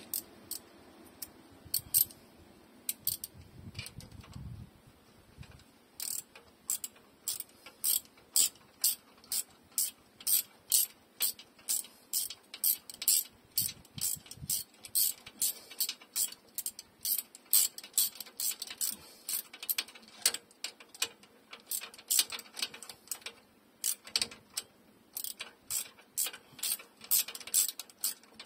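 Hand ratchet wrench clicking as it turns the differential's pinion-shaft lock bolt in a 2004 Dodge Ram 1500 rear axle. A few scattered clicks at first, then from about six seconds in a steady rhythm of about two clicks a second.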